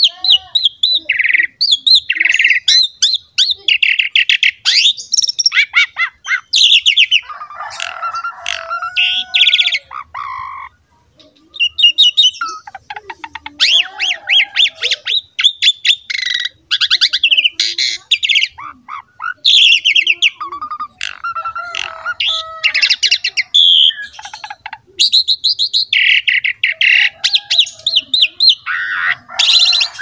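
Pied starling (jalak suren) in full song: a loud, varied run of harsh chatters, fast rattling notes and whistles, with one short pause about ten seconds in.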